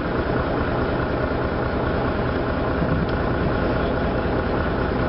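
The engine of the historic riverboat MV Wairua running steadily while the boat cruises, a constant low drone.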